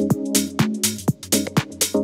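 Electronic dance music with a steady drum-machine beat, crisp percussion hits and sustained synth chords over a bass line.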